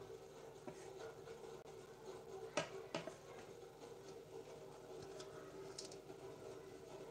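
Bowls and utensils being handled: a few light clicks and knocks, the sharpest two close together about two and a half seconds in, over a steady low hum in a quiet room.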